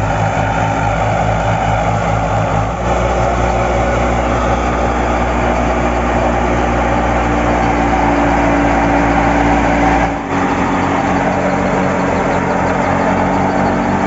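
1978 Fiat 480 tractor's diesel engine running steadily under load, driving a wheat thresher through its PTO, mixed with the thresher's own running noise. The sound changes abruptly twice, about three and ten seconds in.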